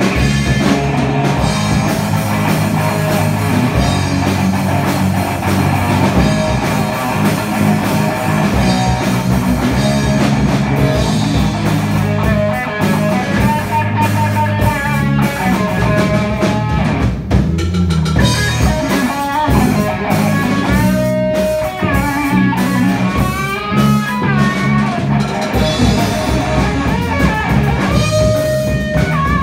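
Live rock band playing loud and steady: distorted electric guitars and a drum kit. A lead guitar line with bent, wavering notes comes in and out over the rhythm.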